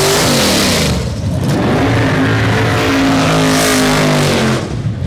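Drag-race car engine revving hard during a burnout, with tyre-spin hiss. The revs fall away in the first second, climb again and are held high for a couple of seconds, then cut off abruptly near the end.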